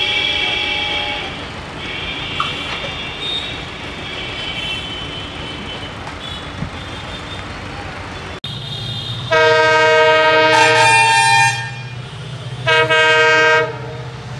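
Quieter rumble of a train pulling away. Then an approaching EMD WDP4 diesel locomotive, its engine a steady low hum, sounds its multi-tone horn twice: a long blast of about two seconds and a shorter one of about a second.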